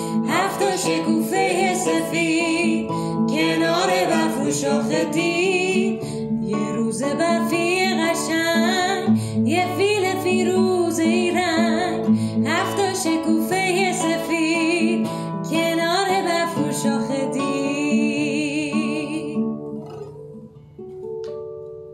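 A woman singing a Persian children's song with vibrato to a classical guitar accompaniment. Near the end the singing stops and the guitar plays on alone, closing on a last plucked note as the music fades.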